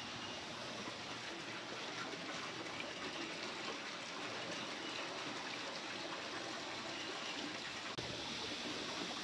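Running water trickling steadily, with a small click about eight seconds in.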